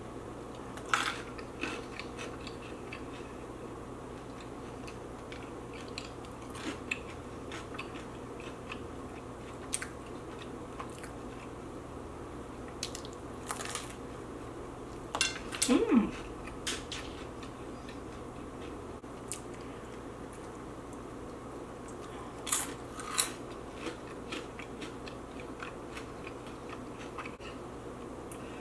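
Close-miked eating of Flamin' Hot Cheetos: scattered crisp crunches and chewing. About halfway through comes a brief mouth sound that drops quickly in pitch, the loudest moment.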